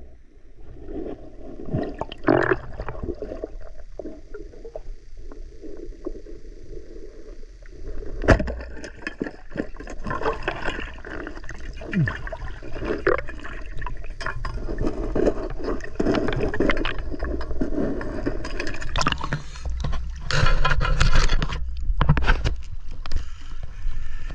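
River water sloshing and gurgling, with irregular knocks, scrapes and splashes from movement in the water. It is quieter for the first several seconds, then busier and louder, with a loud stretch of splashing near the end.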